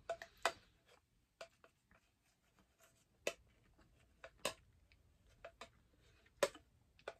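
A spoon scraping and clicking against a clear plastic cup of yogurt parfait: a few short, scattered clicks with quiet gaps between them.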